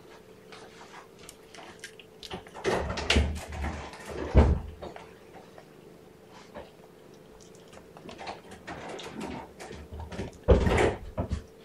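Scattered knocks and rustling, loudest about three, four and a half, and ten and a half seconds in, over a faint steady hum.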